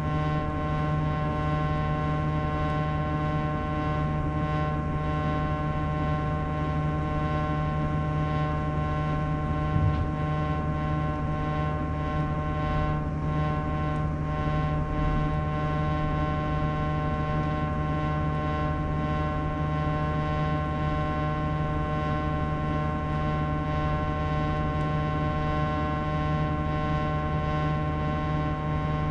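Sharp AY-J40S-W air conditioner giving off a steady, unchanging hum with many pitched overtones. It is an abnormal noise, tied to a frequency fault, that repair has not cured.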